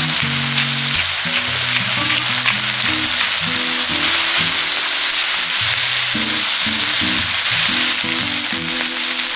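Thinly sliced pork belly sizzling as it fries in a hot pan with onion and green onion; the sizzle grows louder for a few seconds in the middle. Background music plays along with it.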